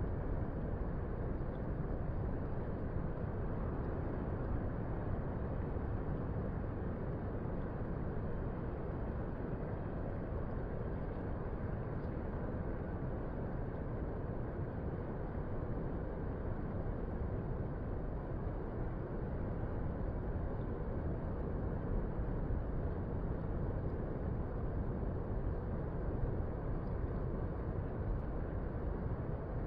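Steady low rumble of distant ocean surf, an even wash of noise with no distinct wave breaks.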